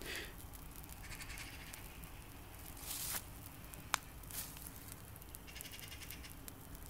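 Faint crackle of a small fire catching hold, with a short hiss about three seconds in and a single sharp pop about a second later. Faint wavering sounds come and go underneath.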